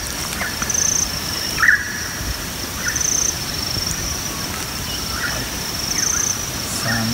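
Open-bush ambience: a steady high-pitched insect drone that swells into a buzz every two to three seconds, with short bird chirps every second or so, loudest about a second and a half in.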